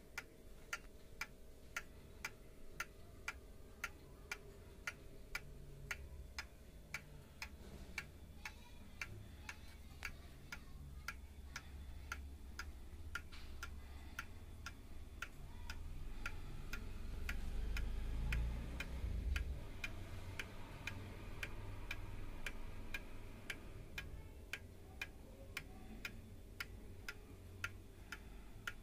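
1960 Seiko 30-day calendar pendulum wall clock running, its escapement giving steady, even ticks. A low rumble swells under the ticking in the middle.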